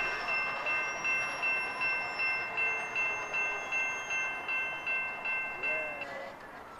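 A bell-like chime ringing on a few steady high tones, pulsing quickly about three times a second, stopping about six seconds in. A short low tone slides up and back down just before the ringing ends.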